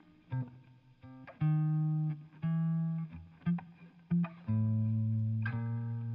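Electric guitar, a Gibson ES-333 set up to ES-335 specs, played fingerstyle through an amp with reverb: a bluesy passage of bass notes, short chord stabs and little fills. About four and a half seconds in, a full chord is struck and held.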